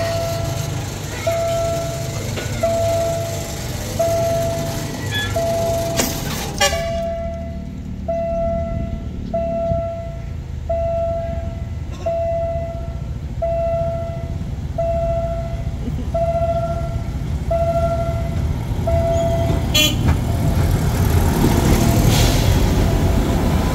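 A level-crossing warning signal sounds a repeating electronic tone, about one every 1.3 seconds, over a low rumble; the tones stop about 20 seconds in. Near the end the ballast tamping machine's running grows louder as it rolls past close by.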